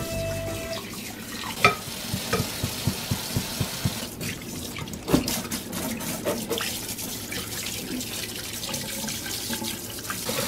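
Kitchen sink sprayer running water onto a soaked plush teddy bear in a stainless steel sink while hands scrub and squeeze the wet fur. A run of short knocks, about three a second, between two and four seconds in, and a few louder clunks.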